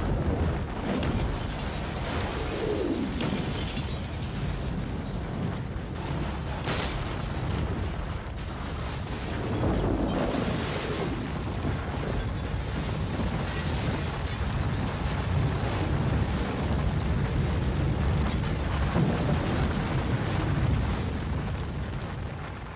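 Avalanche: a continuous heavy rumble of rushing snow and blasting wind that swells and ebbs, with a sharp crack about seven seconds in.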